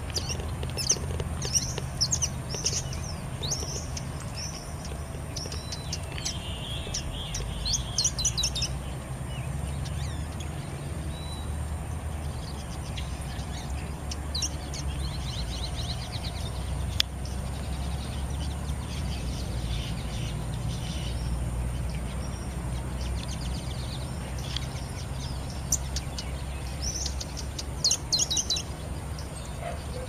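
A hummingbird singing: clusters of quick, thin, high-pitched chips and squeaks, a few seconds at a time with pauses between, over a steady low rumble.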